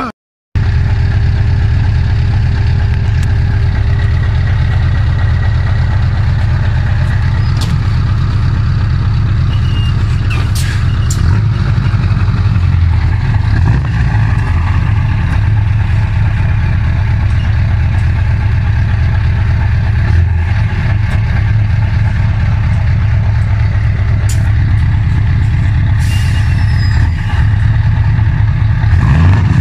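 Scania V8 diesel truck engine idling steadily, heard up close at its side exhaust pipe: a low, even rumble that starts about half a second in.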